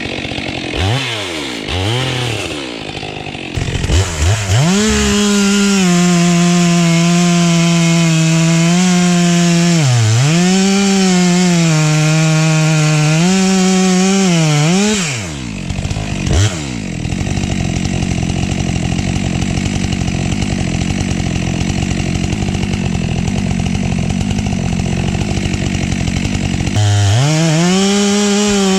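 STIHL MS 462 chainsaw, blipped on the throttle for a few seconds, then held at high revs while cutting wood, its engine note dipping in pitch a few times as the chain bites. Near the end it revs up again.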